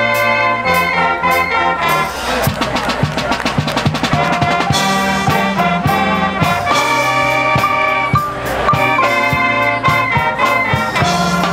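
High school marching band playing: trumpets, other brass, saxophones and sousaphone hold loud, changing chords, with percussion strikes through the middle and again near the end.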